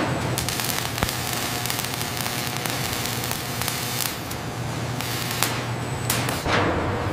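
Robotic arc welding: a dense, steady crackle and sizzle of the welding arc over a low steady machine hum, with a louder rush about six and a half seconds in.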